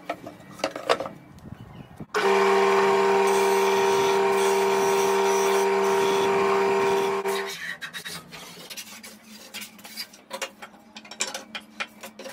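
A table-mounted spindle sander runs with a steady hum for about five seconds, starting and stopping abruptly, as a wood strip is sanded against the drum. After it, a hand plane shaves a wood strip in a series of short, irregular rasping strokes.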